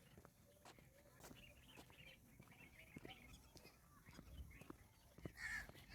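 Faint countryside birdsong: scattered chirps, then a louder harsh call near the end.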